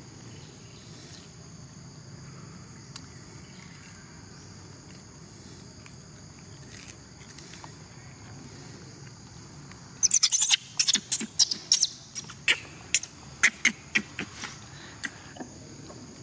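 Outdoor forest background with a steady high-pitched insect-like drone and short high chirps repeating every second or so. About ten seconds in, an irregular run of a dozen or so sharp, loud clicks and knocks lasts about five seconds.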